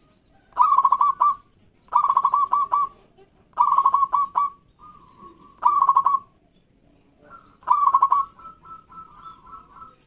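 Zebra dove (local perkutut) cooing loudly in five phrases, each a quick run of staccato coos, coming every one and a half to two seconds. The last phrase trails into a string of softer notes.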